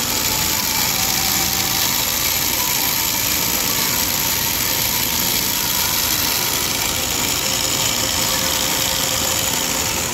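Industrial sewing machine running steadily as it stitches along a fabric edge.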